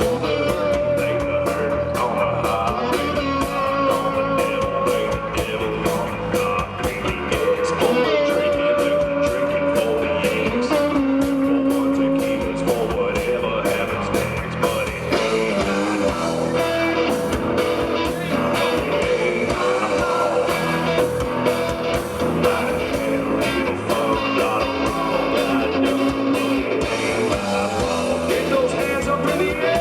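Live blues-rock band playing an instrumental passage led by electric guitar, over bass and drums with a steady beat.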